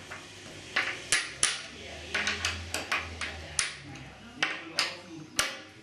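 Sharp metallic clicks and clinks, about a dozen at an irregular pace, some ringing briefly: a steel hand tool knocking against the stainless steel roller discs and screw heads of a sliding-door fitting as its screws are driven.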